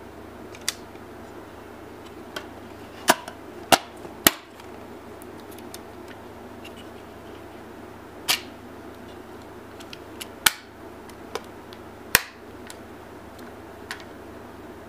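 Sharp mechanical clicks and snaps from an Agfa Billy Record folding camera being worked by hand and folded shut, about nine in all at irregular intervals, three loud ones close together a few seconds in. A low steady hum lies under them.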